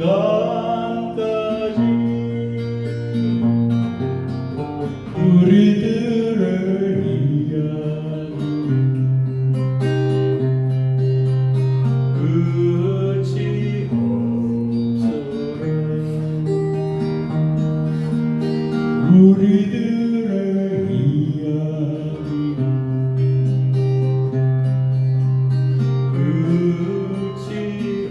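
Acoustic guitar playing a slow folk song, with held low notes under the melody.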